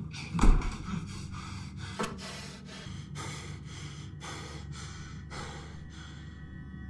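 A man panting hard in quick, gasping breaths, about two a second, with a heavy thud about half a second in and a sharp knock at about two seconds. A steady low drone runs underneath.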